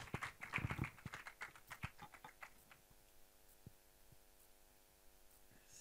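Scattered handclaps from a small audience, thinning out and dying away after about two seconds, then a faint steady hum.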